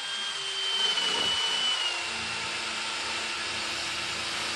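Electric drill with a sanding pad running against a windshield frame: a steady whirring and scuffing with a high whine that sags slightly in pitch in the first couple of seconds.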